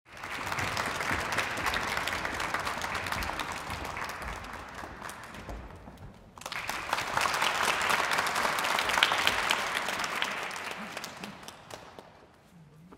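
Audience applauding, a dense patter of many hands clapping. It cuts off abruptly about six seconds in, resumes at once, and dies away near the end.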